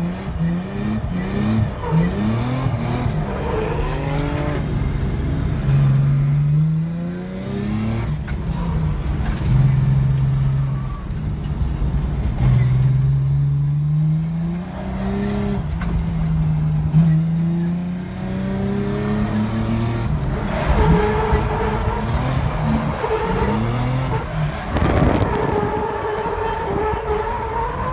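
Drift car engine heard from inside the cabin, revving hard and repeatedly climbing in pitch and falling back as the car is held in a slide. Tyre squeal rises over it in the last third.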